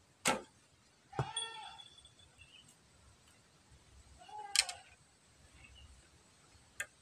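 A carved wooden bow loosed from full draw: one sharp string snap just after the start. A cat meows twice, about a second in and again after four seconds, and there are a few light clicks.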